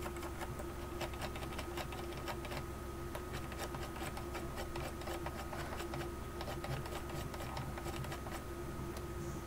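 Block plane shaving a glued-in wood patch flush with the door's edge: quick, repeated scraping strokes of the blade across the wood, over a steady background hum.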